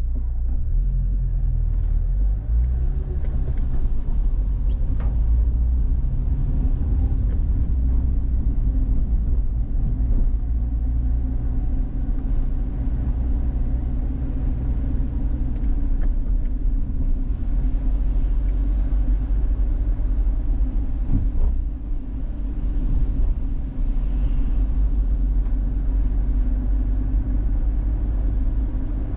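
Car driving along: a steady low rumble of engine and tyre noise, with a few faint ticks over it.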